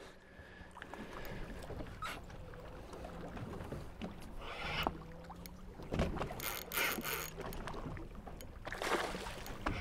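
Boat engine idling in a steady low hum, with water sloshing against the hull in a few short rushes.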